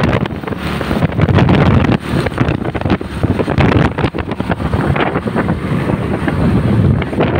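Wind buffeting the microphone of a phone on a moving motorcycle, with the motorcycle's engine running underneath.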